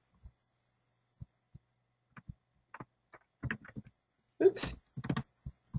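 Computer keyboard keystrokes: scattered single taps at uneven intervals, with a short run of them a little past the middle.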